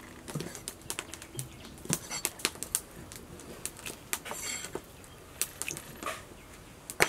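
Knife chopping raw offal on a wooden cutting board: a series of irregular sharp knocks.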